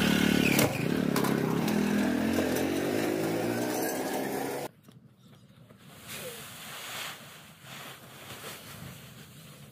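Motorcycle engine running close by, a steady note that cuts off suddenly a little under halfway through. After that come faint, scattered rustles, matching the sack of dry chopped fodder being tipped into a metal trough.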